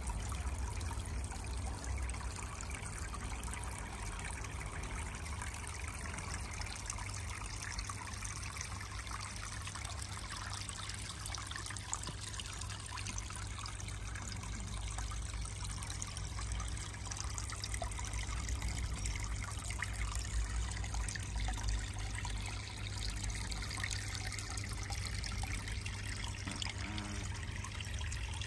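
Barrel pond water feature trickling steadily, water splashing into the pond, over a steady low rumble.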